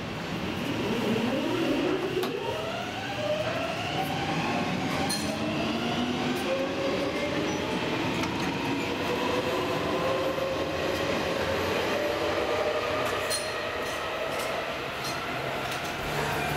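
Metro train accelerating out of the station, its electric traction motors giving a whine of several tones that rises steadily in pitch for several seconds, then levels off.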